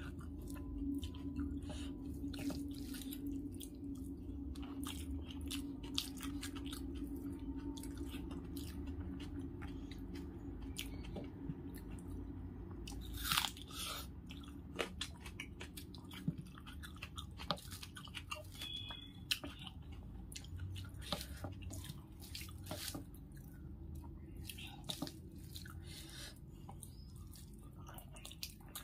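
Close-miked chewing of rice and fried catla fish eaten by hand: a steady run of small wet mouth clicks and smacks, with one louder click about halfway through.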